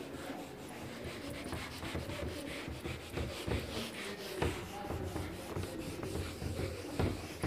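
Whiteboard duster rubbing back and forth on a whiteboard, erasing, in a run of short uneven strokes.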